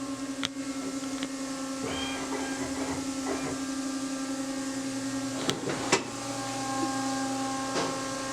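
Steady machine hum with a constant low tone, broken by a few sharp clicks and knocks, the loudest two close together about five and a half seconds in.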